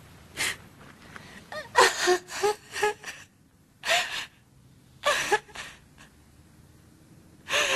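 A man gasping and groaning in strained, breathy bursts: a short one, then a longer cluster of panting cries about two seconds in, then single gasps near the middle and again later. Some breaths break into short voiced groans.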